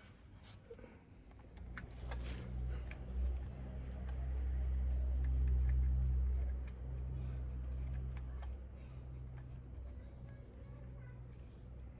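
Light clicks and taps of metal motorcycle engine parts being handled and fitted, over a low droning hum that swells for a few seconds and then fades.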